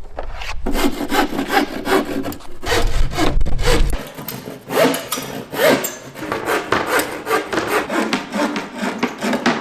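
Handsaw cutting through plywood in quick back-and-forth strokes, about three or four a second.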